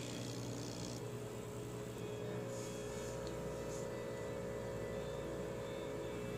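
Small electric vacuum pump of an SMD vacuum pick-up tool running with a steady hum.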